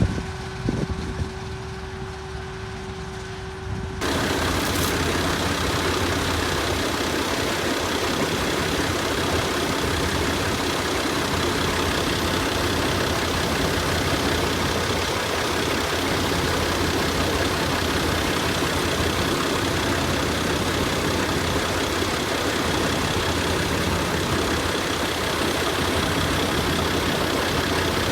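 Harvesting machine's engine running steadily. About four seconds in, the sound abruptly becomes louder and fuller, a dense mechanical noise over the engine's low note.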